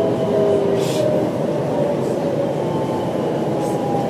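Electric train running, heard from inside the passenger car: a steady rumble with a faint whine that slowly falls in pitch as the train slows, and a brief hiss about a second in.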